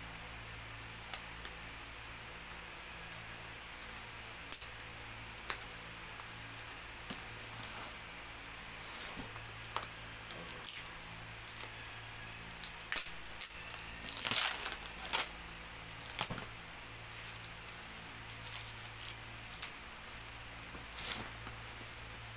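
A cardboard courier box being handled and turned over: scattered taps and scrapes with short tearing and crinkling sounds at its taped edges, busiest about two thirds of the way through.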